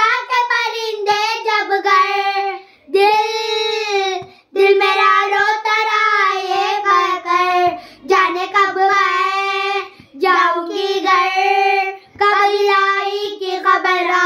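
Two young girls singing an Urdu noha (a Muharram lament) together, unaccompanied, in long wavering phrases with short pauses for breath.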